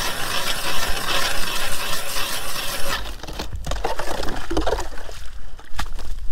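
Hand ice auger grinding steadily through lake ice. About three seconds in the grinding stops and gives way to wet sloshing and clinking of ice chips, as the auger breaks through and water floods up into the slush around the hole.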